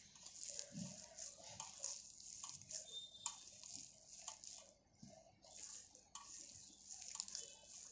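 A hand squeezing and mixing moist grated beetroot and cabbage batter in a steel bowl: faint, irregular wet squishing and rustling with scattered small clicks.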